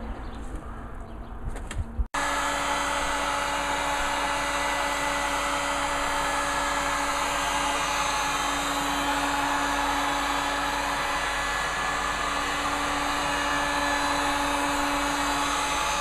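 Electric heat gun blowing hot air steadily onto a car headlight housing, with a constant fan-motor whine, to soften the sealant holding the lens. It starts abruptly about two seconds in.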